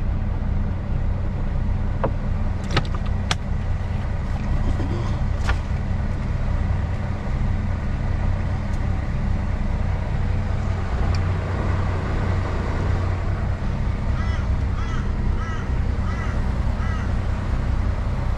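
Kenworth truck's diesel engine idling steadily, heard from inside the cab while the truck sits stopped in traffic. A few light clicks come in the first few seconds, and a bird calls repeatedly near the end.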